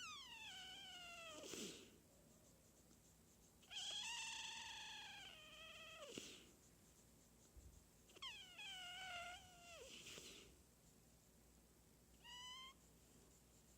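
Micro mini pig snoring in its sleep: roughly every four seconds a soft, whistling snore that slides down in pitch and ends in a short breathy rasp, three times, with a brief higher whistle near the end.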